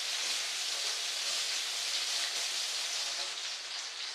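Kitchen tap running in a steady hiss as a buttery knife is rinsed under it.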